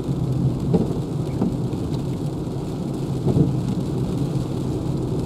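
Inside the cabin of a Renault Zoe electric car on the move in the rain: steady low road and tyre rumble on the wet road with the hiss of rain, and a few thumps.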